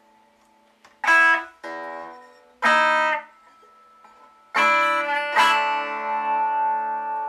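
Epiphone Dot semi-hollow electric guitar strummed clean on its bridge pickup: five chords, three short ones in the first few seconds, then two that ring out.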